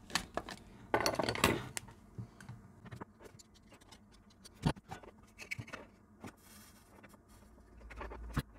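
Flux jar and a thin metal tool being handled against a tinplate modulator can on a cutting mat: scattered small clicks and knocks, with a short scraping rasp about a second in, as flux is applied to the can before soldering.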